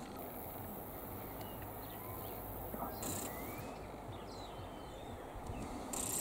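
Quiet outdoor background: steady low noise with a few faint bird chirps, and a high steady hiss that cuts off about halfway through.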